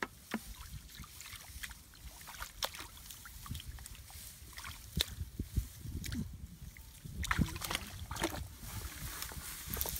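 Hands sloshing in shallow muddy water while groping for fish, with irregular small splashes.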